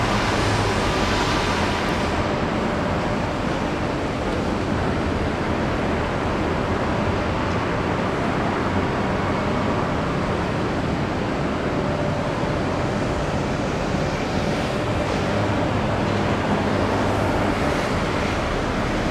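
Steady outdoor ambient noise of a shipyard and harbour: an even rush with faint steady hums underneath and no distinct events.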